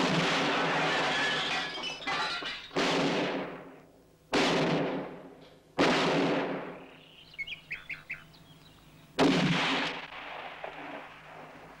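Film gunfire: about five sudden loud shots, each followed by glass and bottles shattering and a second or more of dying crash and ring. In a lull between shots, a few short bird chirps.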